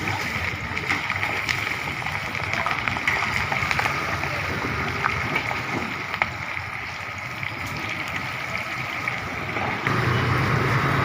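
Chicken frying in hot oil, a steady sizzle with many small crackles and pops. A low hum joins about a second before the end.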